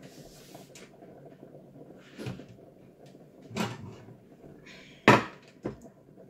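Kitchen cupboards being opened and shut: four knocks, the sharpest and loudest about five seconds in, over a faint steady low hum.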